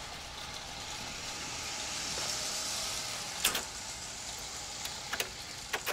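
Vinyl surface hiss and crackle from a 45 rpm single spinning on a record player, the stylus in the groove before the song begins. A sharp click comes about three and a half seconds in, with a few smaller pops near the end.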